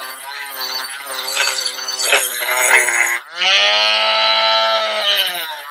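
Cordless Dremel rotary tool with a wire wheel, whining as it scrubs a small metal cooking pan. About three seconds in the whine briefly dips, then comes back louder and lower in pitch and holds for about two seconds before rising again.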